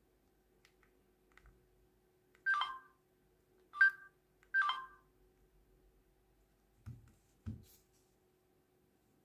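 Three short electronic key beeps from a mobile phone's keypad as its buttons are pressed, the last held a little longer. Then two low knocks, a phone being set down on the table.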